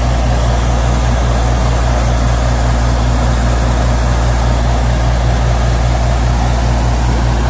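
Heavy diesel engine of a lorry-mounted borewell compressor rig running at a steady, loud, even speed, driving the air compressor that blows out a borewell.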